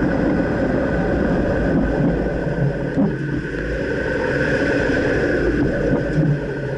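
2009 Dodge Ram pickup running with steady engine and road noise, and a couple of brief knocks, about three seconds in and again near the end: the clunk that the owner suspects comes from the rear right control arm.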